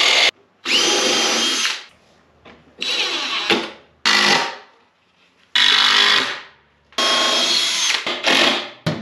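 Cordless drill driving screws into wood in about six short runs, each a second or less, with quiet gaps between. A miter saw cut ends abruptly at the very start.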